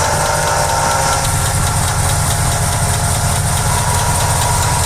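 Car engine running with a worn water pump bearing, which gives a steady whine over the engine's running sound.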